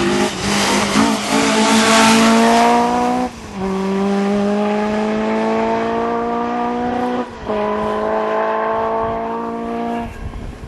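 Rally car accelerating hard at full throttle, its engine note climbing steadily through the revs. Two quick upshifts come about three and seven seconds in. The first few seconds carry a loud rushing noise over the engine.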